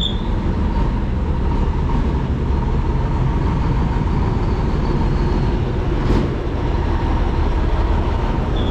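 A large diesel flatbed truck's engine running close by as it moves slowly through the street, a steady low sound, with a single short click about six seconds in.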